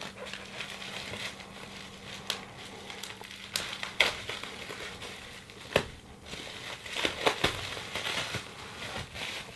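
Packaging being handled by gloved hands: plastic and tape crinkling and rustling as a taped-in package is pulled free of its bag, with a few sharp clicks and snaps along the way.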